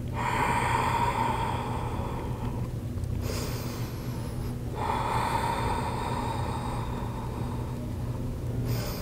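A woman breathing slowly and deeply close to the microphone: two long airy breaths of about three and four seconds, with a shorter, higher breath between them.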